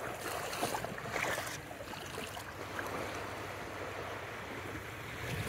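Small waves washing at the water's edge: a steady, even hiss of shallow surf.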